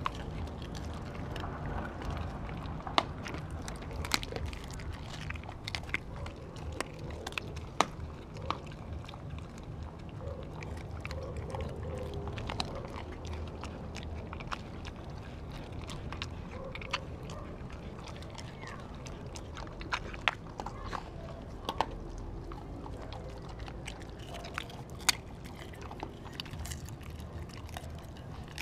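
Dogs eating from stainless steel bowls: chewing and biting, with many scattered sharp clicks, over a steady low rumble.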